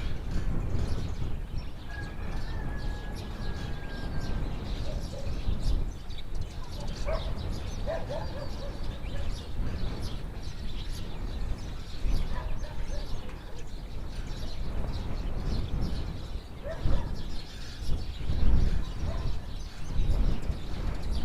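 Rural village ambience: small birds chirping now and then over a steady low rumble that swells in gusts near the end.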